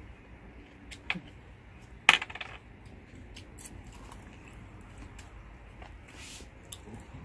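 Cutlery clinking against a plate during a meal: small scattered clicks, a sharp click about a second in and one loud ringing clink about two seconds in.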